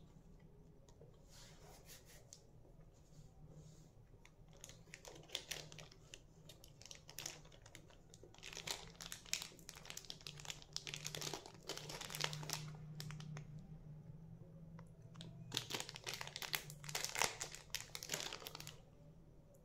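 Small plastic candy packets crinkling as they are handled, in several bouts of dense crackling, the louder ones in the second half, over a low steady hum.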